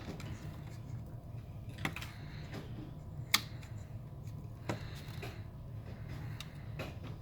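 Sharp little plastic clicks and taps as the retaining tabs of a Mazda RX8 climate control unit's plastic housing are pressed in with a pick and release, the loudest click a little over three seconds in. A low steady hum lies under them.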